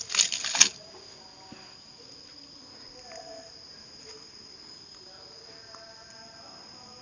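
Firewood being shoved into a wood-fired clay stove: a brief burst of scraping and crackling in the first second. After that only a steady high-pitched whine and faint low background.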